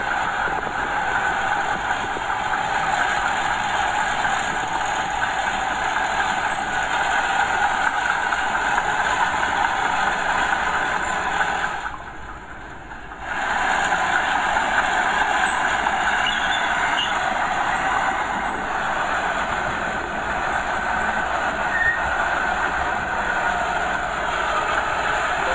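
Small Komatsu bulldozer at work pushing soil: its diesel engine and steel tracks running steadily with a metallic, rail-like clatter. The sound drops away for about a second and a half near the middle, then comes back at full level.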